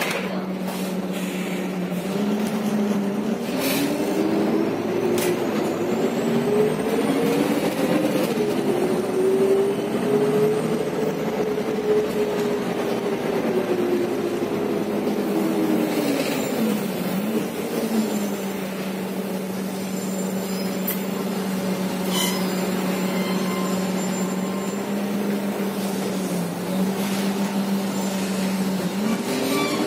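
Renault MGDR 06.20.45 natural-gas engine and drivetrain of an Irisbus Agora L articulated bus heard from inside the cabin: its pitch climbs as the bus accelerates, holds, then drops back as it eases off, and climbs again near the end. A few short knocks from the bus body come through along the way.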